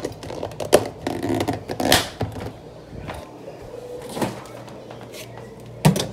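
Kitchen dishes and utensils being handled: a handful of separate sharp knocks and clatters spread over several seconds.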